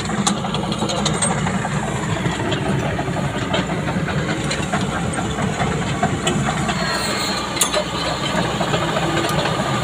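Excavator diesel engine running steadily, with a hiss over it and a few light clicks.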